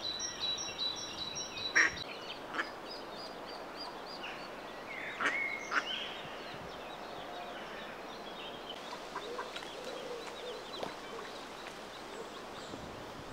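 Mallard ducklings peeping: runs of thin, high, rapidly repeated calls, with a few louder short calls about 2 and 5 seconds in, fading to occasional faint calls in the second half.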